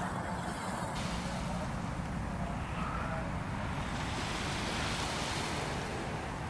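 Steady outdoor rumble and hiss of wind on the microphone, with no distinct events.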